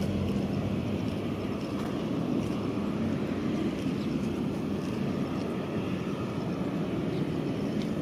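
Steady low rumble of a distant airliner's jet engines at taxi power: the Airbus A350-900's Rolls-Royce Trent XWB turbofans, heard from far off.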